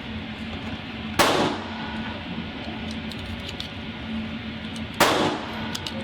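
Two loud gunshots about four seconds apart, each with a ringing tail, from other shooters at the range. Between them are faint clicks of 9mm rounds being pressed into a pistol magazine.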